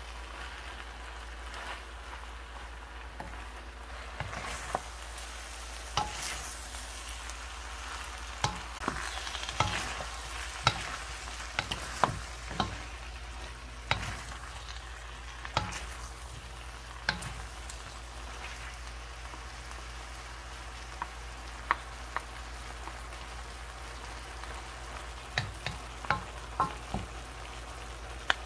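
Chicken, water spinach and green peppers sizzling in a frying pan as they are stir-fried. A wooden spatula stirs them and taps and scrapes against the pan in irregular sharp knocks.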